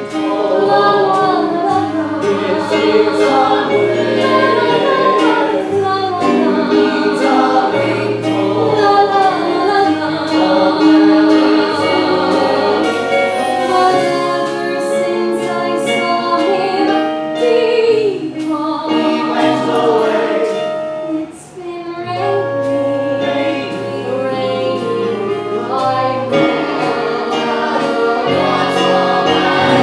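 Live theatre band with a drum kit playing a show tune with a steady beat, under a group of voices singing together. The music dips briefly about two-thirds of the way through.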